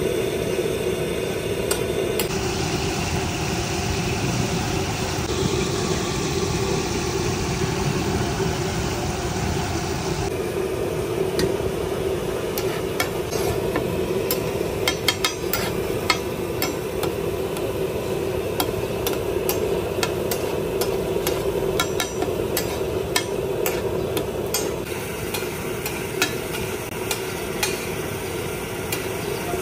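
Mutton liver and tomatoes sizzling on a large flat steel tawa griddle, with a steel spatula clinking and scraping against the griddle in quick, uneven strokes through the middle stretch. A steady hum runs underneath.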